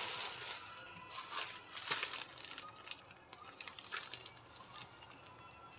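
Plastic courier pouch crinkling and rustling as it is handled in the hands, with a few sharper crackles.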